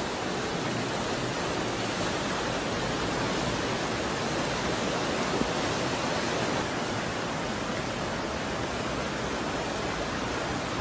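Fast-flowing floodwater rushing steadily, an even unbroken noise.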